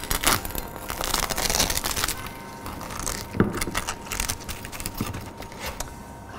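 A knife crunches down through the crisp crackling on a slow-roasted pork belly. Dense crackly snapping fills the first two seconds, then a few separate sharp cracks follow.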